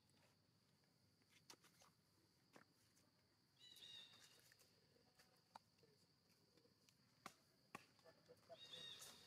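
Near silence: faint outdoor background with a steady high hiss, a few soft clicks, and two brief high chirps, about four seconds in and near the end.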